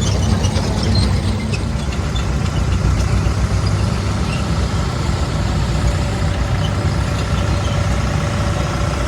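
An engine running steadily close by, with a faint steady whine joining in during the second half.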